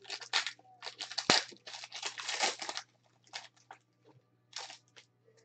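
Foil wrapper of a Prizm baseball card pack crinkling and tearing as it is ripped open and the cards are pulled out. Dense crinkling runs for about three seconds, with a sharp snap about a second in, then a few scattered crinkles.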